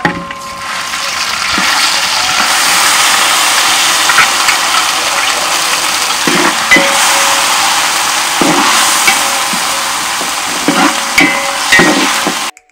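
Ginger-garlic paste and coriander frying in hot oil in a cooking pot, a loud steady sizzle that swells over the first second or two. A spoon stirs and knocks against the pot a few times. The sizzle cuts off suddenly just before the end.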